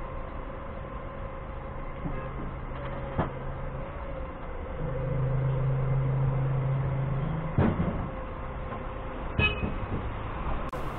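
Doosan 4.5-ton forklift's engine running, heard from the cab. It rises in level and pitch for about three seconds in the middle, then settles back. A few sharp knocks sound at about three, seven and a half, and nine and a half seconds.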